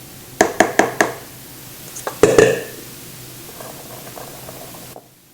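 Metal cake pan full of batter tapped against the counter to settle it and knock out air bubbles: four quick knocks, then a louder cluster of knocks about two seconds in.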